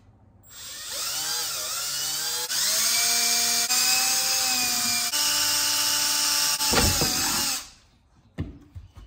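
Cordless drill with a 1/4-inch bit running at speed, drilling holes through a plastic milk crate. The motor whine speeds up at the start, shifts pitch several times as the bit cuts and breaks through, and stops abruptly near the end, followed by a few faint clicks.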